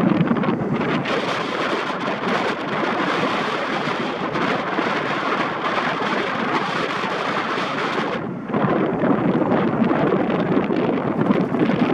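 Wind buffeting the microphone on a moving scooter, a loud steady rush of noise. About eight seconds in the hiss briefly dips and loses its top end, then carries on.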